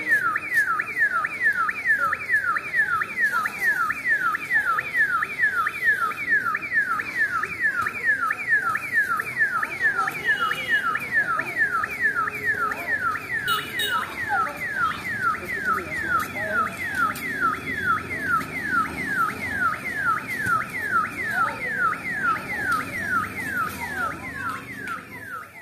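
An electronic alarm wailing without a break, one tone falling sharply in pitch and repeating about three times a second.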